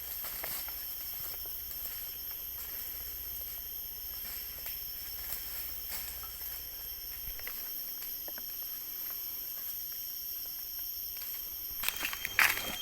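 Steady high-pitched drone of forest insects, with faint crackles of footsteps and twigs on leaf litter and a few louder crunching steps near the end.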